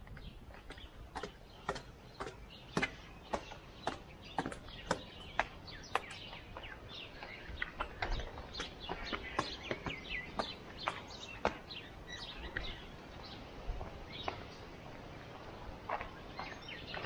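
Footsteps on stone steps and paving: hard, clicking steps about two a second that thin out after about twelve seconds, with small birds chirping.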